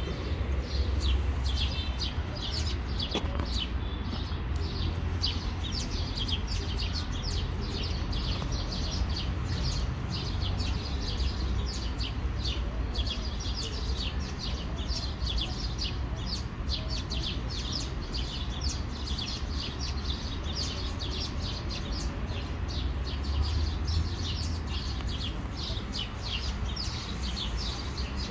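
Small birds chirping rapidly and continuously, many short high chirps a second, over a steady low rumble.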